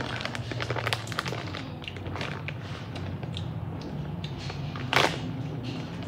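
Doritos tortilla chips being eaten: a run of crisp crunching crackles from chewing and the foil bag, with one louder crack about five seconds in.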